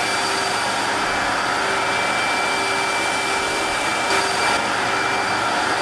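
Portable carpet extractor running with a Rotovac rotary head scrubbing wet carpet: a steady rushing vacuum hum with a faint whine, as water is sprayed and sucked back up.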